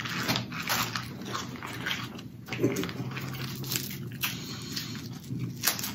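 Close-up eating of snow crab: irregular clicks, cracks and wet smacks of crab shell being broken and chewed.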